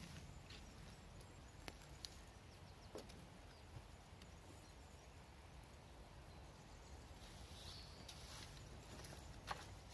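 Faint rustling and scraping of a wooden stick raked through dry leaf and needle litter on the forest floor, with a few light clicks of twigs and a sharper snap near the end.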